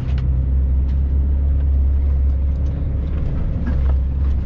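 Truck diesel engine drone heard inside the cab: a loud, steady low hum, with a few light clicks near the start.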